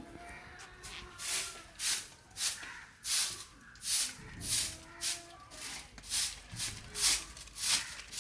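Rhythmic cutting strokes into a coconut palm trunk, about two a second, each a short hissing swish as the blade works through the fibrous wood.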